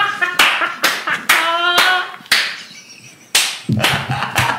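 Hand claps, about seven sharp irregular ones, mixed with laughter, with a short lull in the middle.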